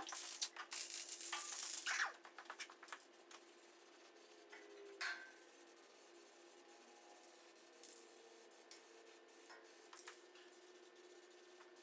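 Aerosol spray-paint can spraying: a hiss of about a second and a half at the start, then a short spurt about five seconds in, with faint clicks of handling in between.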